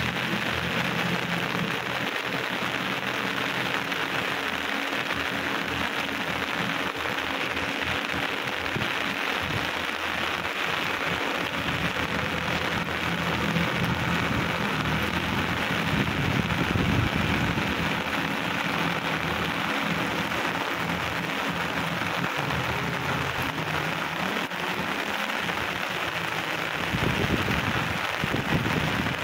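Heavy rain falling steadily on a flooded paddy field's standing water, with a tractor's diesel engine running faintly beneath it.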